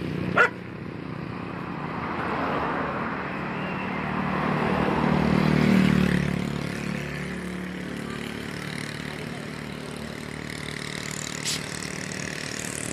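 A road vehicle passing by: engine and tyre noise swell to a peak about six seconds in, then fade. A single sharp click just after the start.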